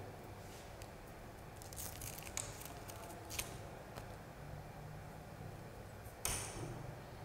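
Light clicks and rustles of a barber handling a straight razor and its blade, with a louder, sharper crackle near the end.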